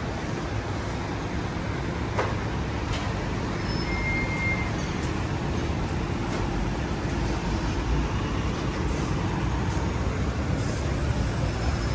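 City street traffic: cars, taxis and a city bus running, a steady wash of engine and tyre noise, strongest in the low end.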